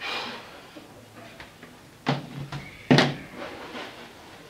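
Fabric rustling as something is pulled from a shorts pocket, then two sharp knocks about a second apart, the second louder.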